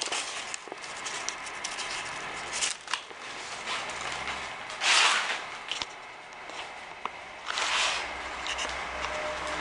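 Handling noise: rustling and scraping with scattered clicks. Two louder rasping scrapes come about five and eight seconds in.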